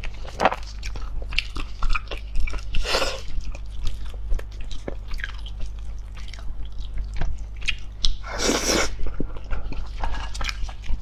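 A person chewing and biting food close to the microphone, with many small wet clicks and crunches and two longer noisy bursts about three and eight and a half seconds in. A steady low hum runs underneath.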